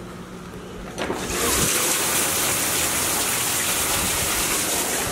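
Heavy rain pouring down outside, muffled at first and then loud and steady once a door is opened about a second in.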